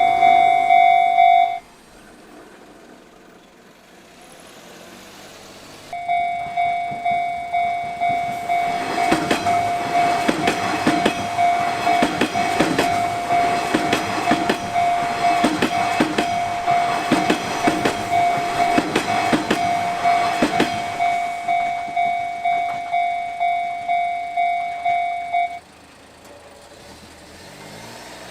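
Japanese level-crossing warning bell ringing its electronic 'kan-kan' tone about twice a second, while a train passes over the crossing in the middle, wheels clacking over the rail joints. The bell cuts off abruptly about a second and a half in, starts again abruptly about six seconds in, and cuts off again near the end.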